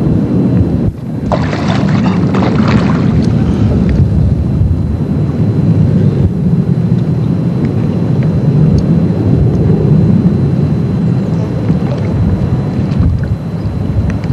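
Wind buffeting a camcorder microphone: a steady low rumble, with a short burst of hiss about one to three seconds in.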